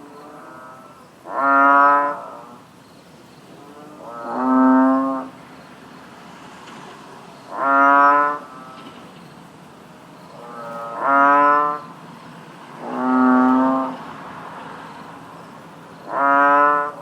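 Bullfrog calling: a series of deep, resonant croaks, each under a second long and a few seconds apart, about six loud ones, with fainter answering croaks between them.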